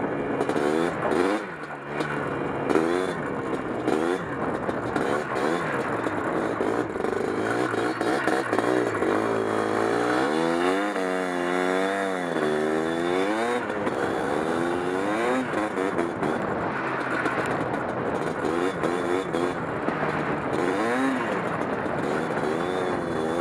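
Yamaha Blaster ATV's two-stroke single-cylinder engine running as it is ridden, its pitch rising and falling with the throttle. The biggest climb and drop in revs comes about halfway through, and the level dips briefly near the start.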